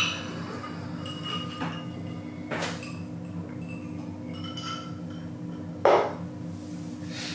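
A drinking glass handled and set back down on a hard tabletop, with a sharp knock about six seconds in and a fainter one earlier. A steady low hum runs underneath.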